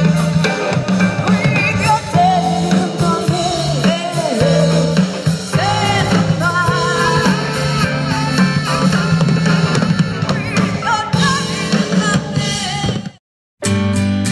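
Background music: a band track with drums and a wavering melody line that stops abruptly near the end. After a brief silence, a new piece with strummed guitar begins.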